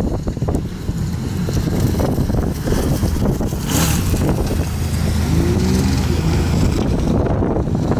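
ATV engine running hard and revving as it climbs a rocky dirt course, with a rising rev about five seconds in.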